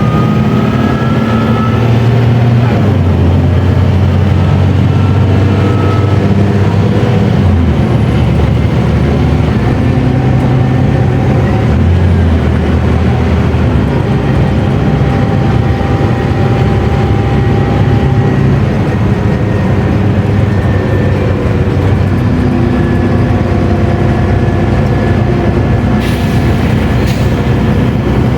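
Mercedes-Benz O500U city bus diesel engine running under load through its ZF automatic gearbox. The engine note steps in pitch several times as the gearbox shifts. Two brief sharp noises come near the end.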